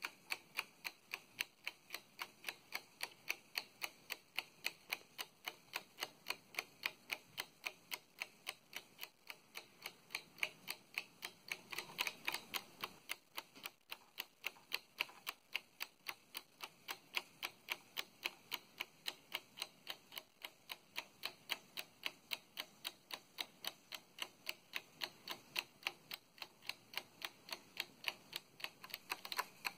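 Spring-driven 3D-printed plastic flying tourbillon ticking steadily, its printed escape wheel and pallet knocking a few times a second as the cage turns.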